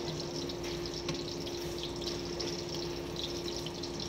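Pan of pasta cooking on a gas stove: a steady sizzling hiss with fine crackles, over a constant low hum.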